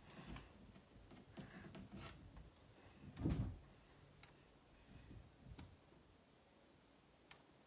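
Quiet room with faint clicks and paper handling as a book is leafed through, and one soft thump about three seconds in.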